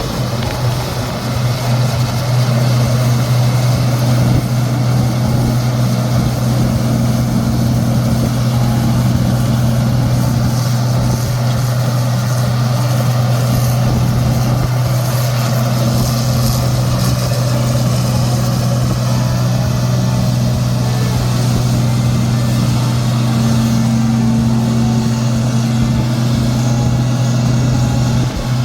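An engine running steadily at constant speed, a loud low hum that holds unchanged throughout.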